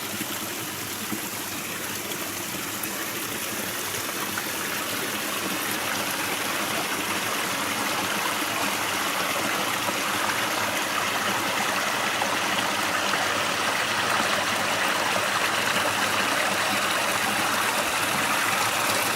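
Rushing stream flowing over rocks, a steady watery rush that grows gradually louder.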